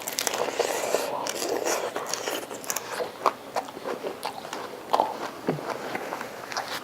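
A person chewing and biting into a taco close to the microphone, with a steady run of wet mouth clicks and smacks.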